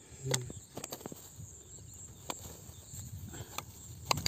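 A few scattered sharp clicks and knocks, the loudest just after the start and again near the end, over a faint steady high hiss.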